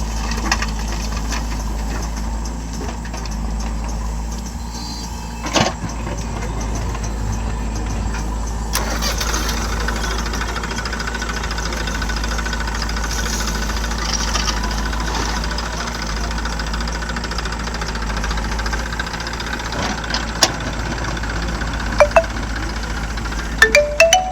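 Tractor engine running steadily at an even low pitch, with a few sharp clicks or knocks over it.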